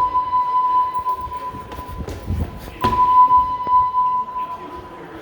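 Building fire alarm sounding a loud, steady single-pitched electronic tone in long blasts. The tone weakens after about a second and a half, comes back strongly near the three-second mark with a sharp knock, and stops about a second and a half later.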